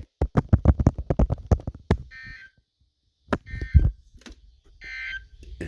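NOAA Weather Radio end-of-message data bursts: three short, buzzy digital tone bursts about a second and a half apart, the coded signal sent as the weekly test of the warning alarm ends. Before them comes a rapid run of clicks, about seven a second, and a couple of low thumps fall between the first and second bursts.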